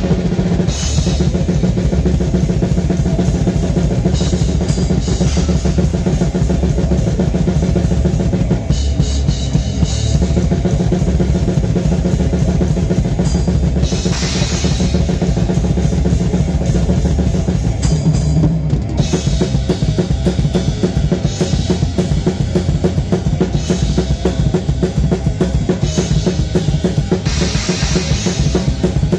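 Metal drum kit played fast and hard, with kick drum, snare and cymbals loud and close, over the band's electric guitars. Rough, poor-quality recording.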